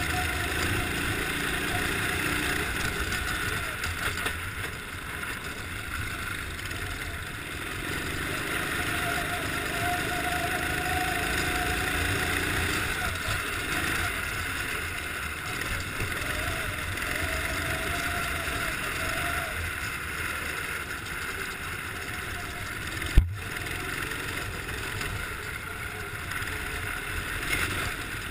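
Kart engine running hard under the seat, its pitch rising and falling as the throttle is worked through the corners, over a steady rushing noise. A single sharp knock comes late on.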